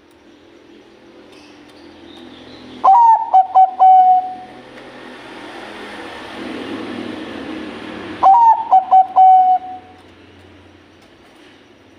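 Zebra dove (Bangkok-type perkutut) cooing twice, about five seconds apart. Each phrase is a rising opening note, a few quick clipped notes and a longer level final note. A background hiss swells between the two phrases.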